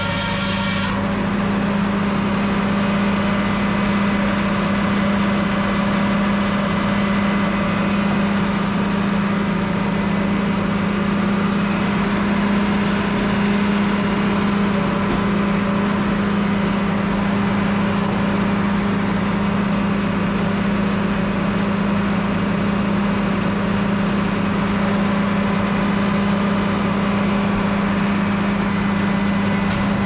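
Belt-driven circular sawmill and its John Deere stationary power unit running steadily, the large saw blade spinning with a constant low hum and no cut being made.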